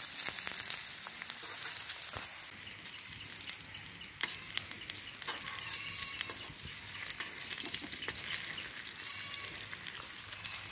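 Battered water hyacinth flowers frying in hot oil in a shallow metal pan, with a loud sizzle for the first two seconds or so. After that the sizzle is quieter, broken by scattered sharp crackles, like a wood fire burning under the pan.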